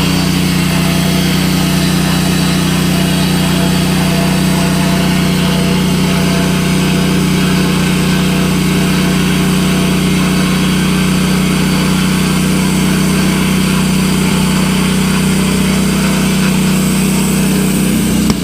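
An engine running steadily at an even speed, a constant low hum with no change in pitch or level, cut off abruptly at the end.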